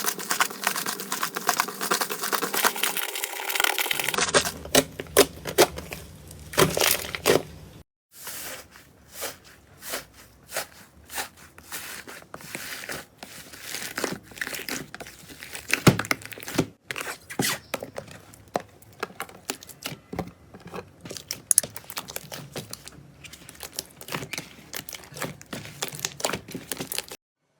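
Slime being squeezed, stretched and poked, giving dense irregular crackling and popping clicks. The sound breaks off abruptly a few times where one clip gives way to the next.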